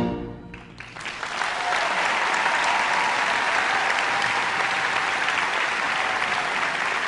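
The last chord of a wind band rings out and fades in the hall, then about a second in an audience breaks into steady applause.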